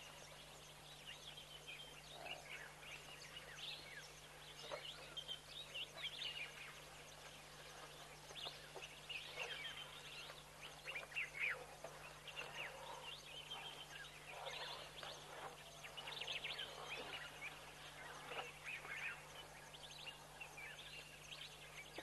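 Wild birds calling and chirping in the bush, many short overlapping calls and sweeps with no pause, over a faint steady low hum.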